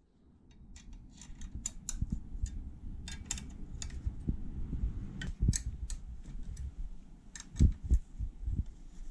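Irregular small metallic clicks and scrapes of an Allen key and bolts on a motorcycle's metal headlight bracket as it is undone, over low rubbing handling noise.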